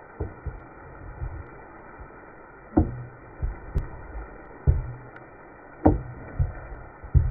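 Wooden spoon stirring chicken in a steaming metal cauldron over a wood fire, knocking dully against the pot's sides and bottom about once a second, over a steady low hiss.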